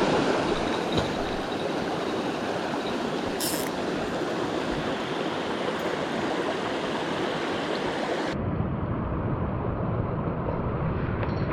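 Mountain stream water rushing steadily. About eight seconds in, the rush turns duller, with more low rumble.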